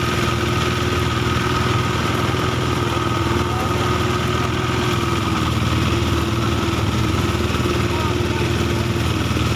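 Small engine running steadily at a constant speed, driving a portable rice thresher.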